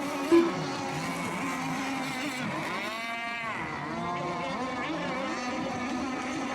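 Several radio-controlled racing boats running at race speed, their engine whines overlapping and shifting in pitch. One passes close about three seconds in, its pitch rising and then falling. A short, loud single tone sounds about half a second in.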